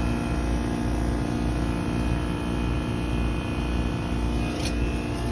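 Trane XR13 heat pump outdoor unit running in defrost: a steady mechanical hum from the compressor with several steady tones, over a low throb that pulses regularly, a little more than once a second.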